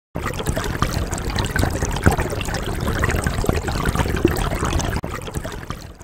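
Running water trickling and splashing like a stream, with many small splashes throughout. It fades out near the end.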